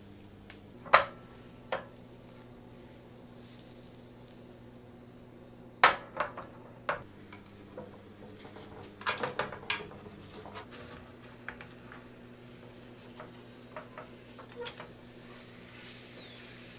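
Kitchen utensils clinking and tapping against a square nonstick tamagoyaki (egg) pan as a thin crepe cooks. A couple of sharp taps come about a second in, a louder group around six seconds, and a quick cluster near ten seconds, with lighter ticks later over a low steady hum.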